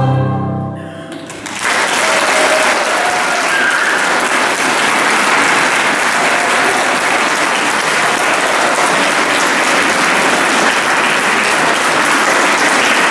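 A large mixed choir's final held chord fades out. About a second and a half in, the audience breaks into steady applause.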